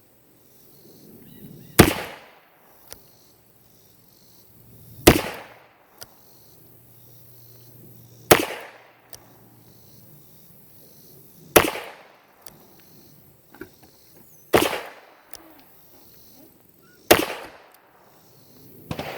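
Ruger Speed Six revolver with a 4-inch barrel firing .38 Special reloads in single action: six shots spaced about three seconds apart, each trailing off in a brief echo.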